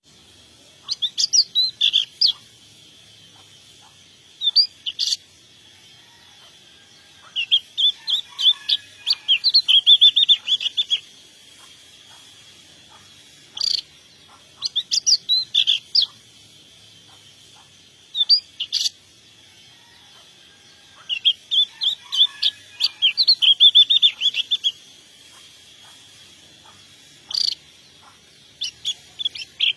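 A songbird singing in bursts of quick, high chirps and trills a few seconds apart, some of them longer rapid runs of notes.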